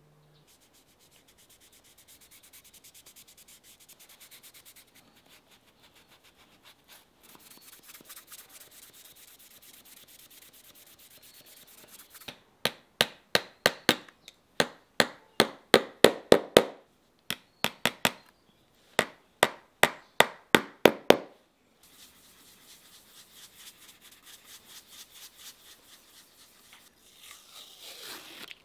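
Fast rubbing strokes on the leather sole and heel of a handmade shoe. In the middle come three runs of loud, sharp knocks, about two a second, from a shoemaker's hammer striking the heel, and then the rubbing starts again.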